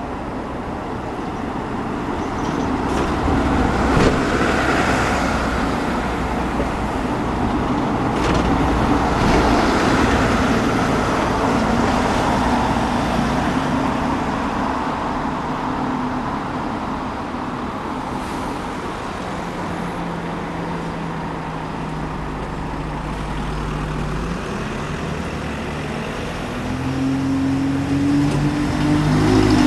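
Street traffic: vehicles passing, with a swell over the first several seconds. Then a vehicle's engine hum comes in about two-thirds through and grows louder near the end.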